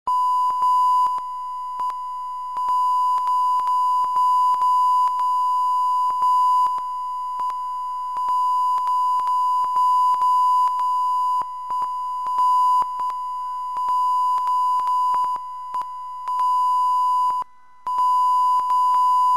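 Steady 1 kHz line-up test tone of a bars-and-tone leader, peppered with frequent small clicks. It drops out briefly about two seconds before it stops, then cuts off suddenly.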